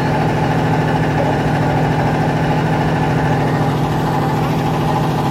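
A boat's engine running steadily and loud, heard from on board the boat, with an even, unchanging throb.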